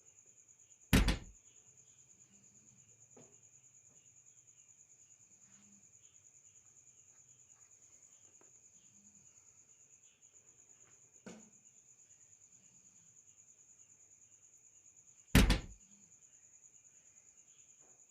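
Two loud, sharp knocks about fourteen seconds apart, with a fainter knock between them, over steady high-pitched insect chirring.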